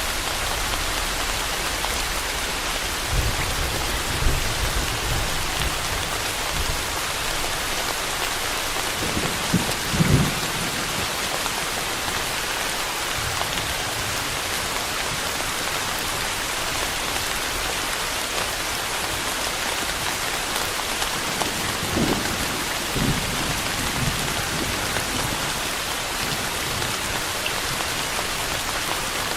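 Steady rain falling, an even hiss of drops on surfaces, with low rumbles of thunder about three seconds in, around ten seconds in, and again near the twenty-two second mark.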